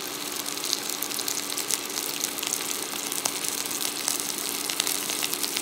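Asparagus spears sizzling in avocado oil in a nonstick frying pan over medium-high heat: a steady hiss with many small pops and crackles.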